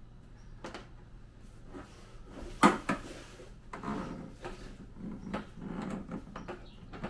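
Corrugated plastic conduit being fed down into a jet ski's engine compartment: scattered rustling, scraping and knocking of the plastic against the hull, with one sharp knock about two and a half seconds in, the loudest sound.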